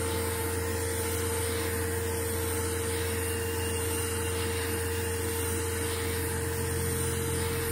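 Steady machine hum with one constant mid-pitched tone over a low drone and a hiss of air, unchanging throughout.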